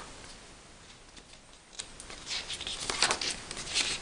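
A folded sheet of glossy printed card rustling and crackling as it is handled and opened out. It is quiet for the first couple of seconds, then a string of short rustles follows.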